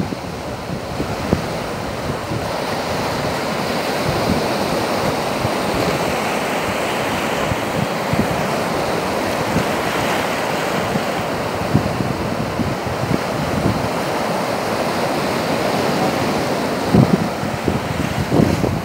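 Surf: small waves breaking at the shoreline and washing up the sand around a rock, a continuous foaming wash that swells and ebbs, with wind buffeting the microphone in low rumbles, strongest near the end.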